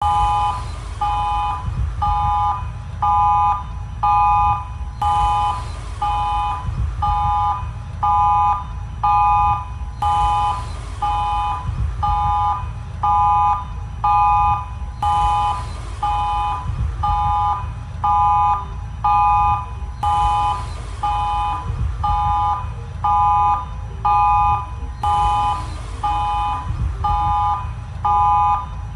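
Emergency alert tone: a harsh three-note chord beeping about once a second in a pattern that repeats every few seconds, over a steady low rumble.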